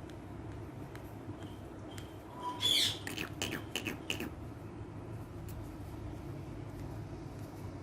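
Green pet parrot giving one short, sharp squawk about two and a half seconds in, followed by a quick run of short chirps and clicks lasting about a second and a half.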